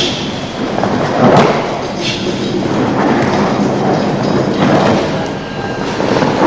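Thuds and slaps of a body landing on a padded mat during jujitsu rolls and break-falls (ukemi), over steady background noise. The loudest thud comes about a second and a half in.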